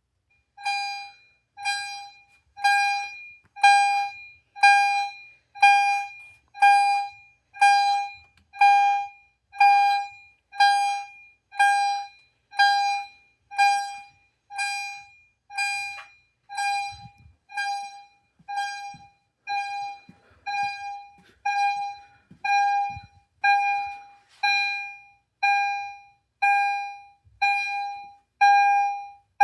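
EST Genesis fire alarm chimes sounding a steady chime pattern: one bell-like note about once a second, each struck and fading, starting just under a second in. Faint low thumps can be heard under it now and then.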